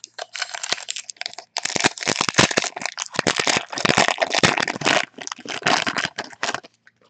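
Foil wrapper of a Panini football card pack being torn open and crinkled in the hands: a continuous crackling that stops about six and a half seconds in.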